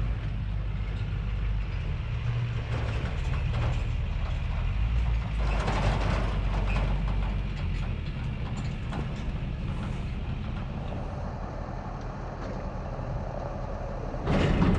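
A vehicle engine idling steadily as a low hum, with a few faint knocks. It gets suddenly louder about half a second before the end.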